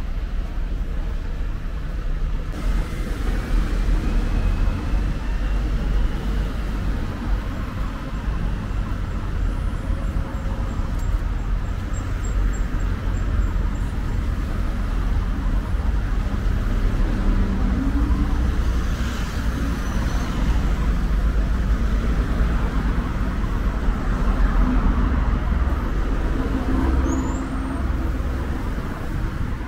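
Busy street traffic: cars and vans driving past close by, a continuous low rumble of engines and tyres, with the engine notes of single vehicles rising and fading as they pass.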